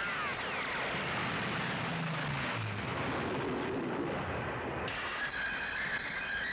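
Steam locomotive running fast in a dense, steady wash of noise, with a brief gliding whine near the start. From about five seconds in, a high, steady squeal of the locomotive's wheels braking on the rails joins it.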